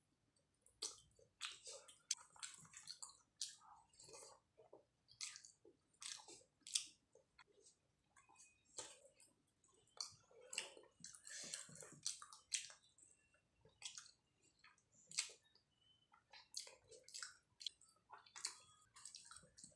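Close-up eating sounds: chewing rice and mutton curry with many irregular wet smacks and clicks of the mouth, along with squishing as fingers mix rice with gravy on the plate.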